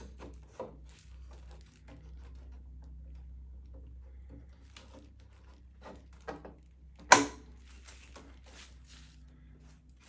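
Hex key and hands at work on the Prusa Core One's steel frame as the display's Allen screws are tightened: scattered light clicks and taps, with one loud sharp knock about seven seconds in.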